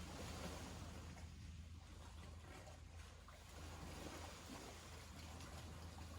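Small waves washing onto a sandy beach: a soft wash that swells near the start and again a little past the middle, over a steady low rumble.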